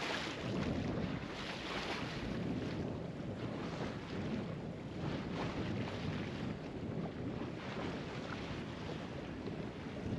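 Water rushing and splashing along the hull of a sailing yacht under way in choppy water, with wind buffeting the microphone; the hiss swells and eases irregularly.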